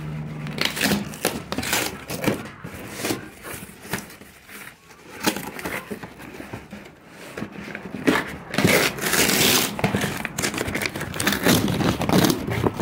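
A package being opened by hand close to the microphone: irregular crinkling, rustling and tearing, with a longer tearing rustle a little after the middle.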